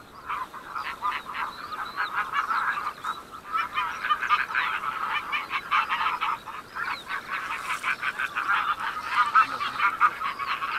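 A flock of wild geese calling: many short honks overlapping in a continuous chatter.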